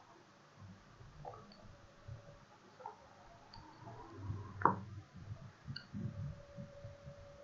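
Faint, scattered clicks and taps of a stylus on a tablet during handwriting, with one sharper click about two-thirds of the way through, over a low room rumble. A faint steady hum comes in near the end.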